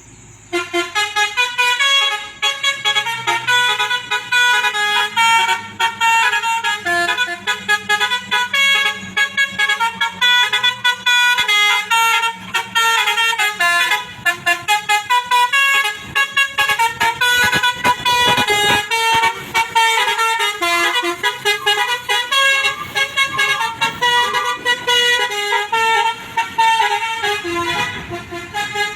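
Klakson basuri, the multi-tone musical horn of a box truck, playing a quick melody of short notes that change pitch rapidly, with only brief breaks between phrases. It starts about half a second in.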